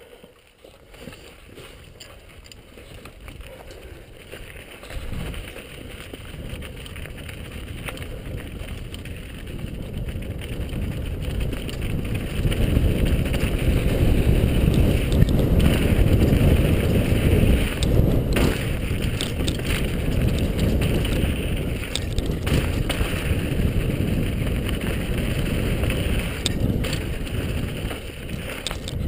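Downhill mountain bike running over a rocky dirt trail, with tyre and frame rattle and wind rushing over the helmet camera. The noise grows louder from about five seconds in as the bike picks up speed and stays loud, with a few sharp knocks over rocks.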